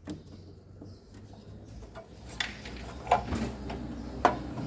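A few sharp knocks and clicks of metal machine parts being handled and pulled out of a washing machine, coming in the second half over a low steady hum.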